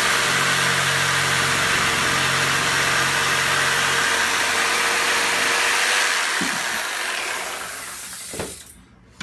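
Heat gun blowing steadily with a loud rushing hiss, warming vinyl hose to soften it before it is pushed onto a pump fitting. About six seconds in it is switched off and its fan winds down over two seconds or so.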